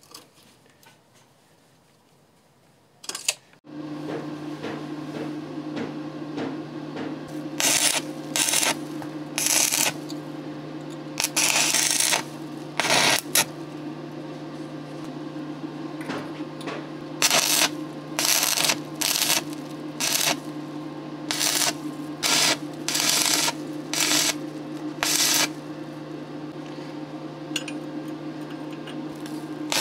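Stick (arc) welding machine humming steadily once it is switched on, with a series of short crackling arc bursts as the electrode strikes and tacks the square steel tube, about fifteen bursts in all.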